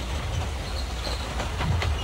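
Two-foot-gauge steam train running along the track: a steady low rumble with scattered clicks from the wheels on the rails.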